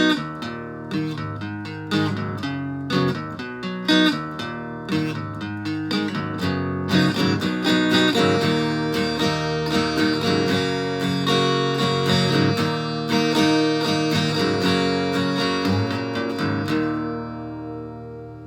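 Acoustic guitar with a Bartolini 3AV pickup, played through a BOSS DS-1 distortion pedal into an amp, strumming chords. The last chord is left to ring out and fades near the end.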